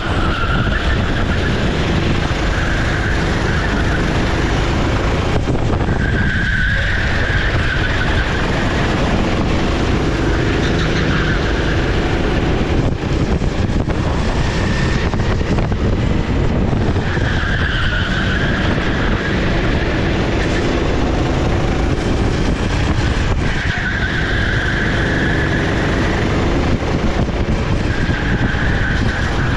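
Sodi SR4 390cc rental kart running flat out on track, its four-stroke engine note rising and falling with brief dips a few times, under dense mechanical and road noise.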